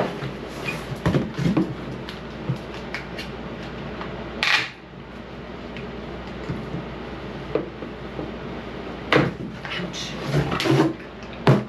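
A cardboard shipping box and its packed items being handled: scattered knocks, clicks and clatters, with a louder rustling burst about four and a half seconds in and a cluster of knocks near the end.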